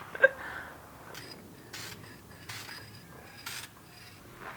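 Hand work on the brake caliper: a sharp click, then four short hissing strokes about a second apart.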